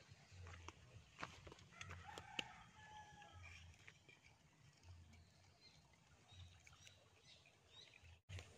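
Faint distant rooster crowing about two seconds in, over quiet outdoor ambience with scattered small clicks. The sound drops out briefly near the end.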